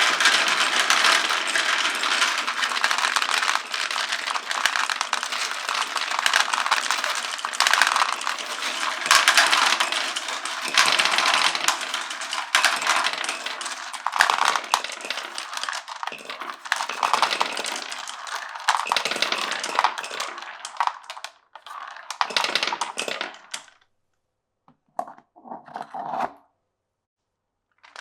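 Many glass marbles rolling and clacking along wooden marble-run tracks, a dense continuous clatter that thins out and stops about three-quarters of the way through, followed by two short runs of rolling near the end.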